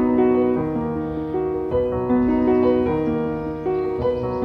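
Background piano music: a melody of single notes over held bass notes.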